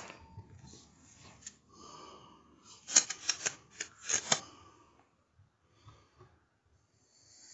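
Air rifle being handled and reloaded: faint rustling, then a quick run of sharp mechanical clicks between about three and four and a half seconds in.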